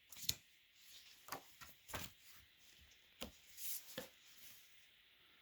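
Faint, scattered clicks and light taps, about half a dozen over a few seconds, with quiet between them.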